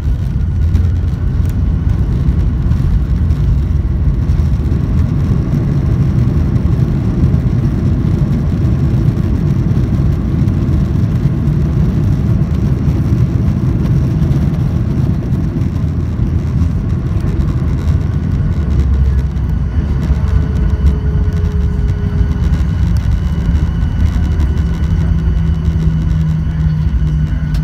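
Cabin noise of a Boeing 737-800 rolling on the runway after landing: a loud, steady low rumble from the wheels and engines. A low, even hum joins about 23 seconds in, and a faint whine slides down in pitch shortly before it.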